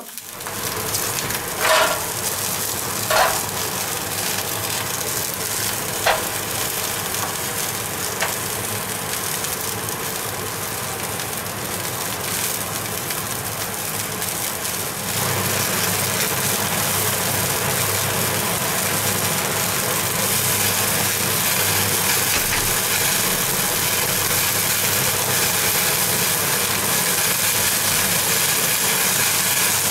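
A veal chop sizzling on the red-hot heating coils of a Severin PG 8545 Steakboard electric grill, with fat dripping onto the coils and flaring up. This runs over the steady hum of a kitchen extractor-hood fan. A few short sharp clicks come in the first seconds, and the noise gets louder about halfway through.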